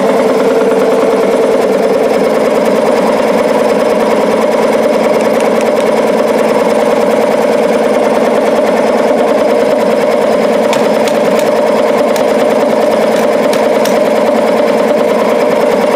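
Belt-driven electric air compressor, its finned piston pump running steadily under load and building pressure in the tank.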